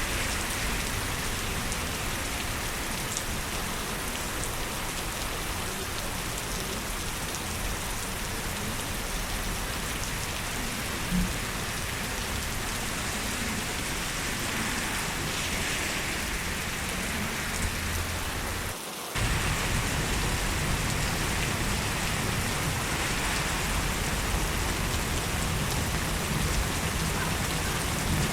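Steady heavy rain falling and pattering on surfaces. About two-thirds through it cuts out for a split second, then resumes a little louder and deeper.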